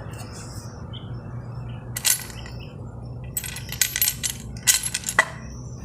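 Small loose metal parts clinking against each other and on metal: one clink about two seconds in, then a quick run of clinks and two more near the end. A steady low hum runs underneath.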